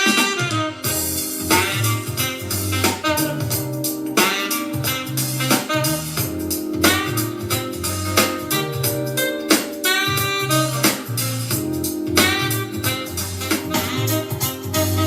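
Instrumental music with a steady beat and a repeating bass line, played back through a small JBL Go Bluetooth speaker for a sound comparison.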